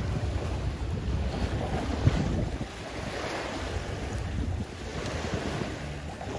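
Wind buffeting the microphone and choppy water slapping against a small boat, with one sharper thump about two seconds in.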